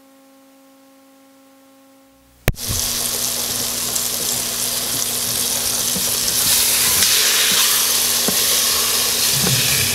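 A faint steady hum, then a click about two and a half seconds in, and flour-dredged round steak sizzling loudly in hot oil in an Instant Pot on sauté. Near the end a utensil stirs and turns the pieces in the pot.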